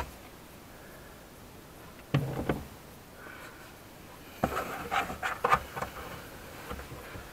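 Plastic luggage-compartment trim panel of a Lexus IS200t being lifted and pulled loose by hand: two knocks about two seconds in, then a few seconds of rubbing and clicking from the trim and its clips.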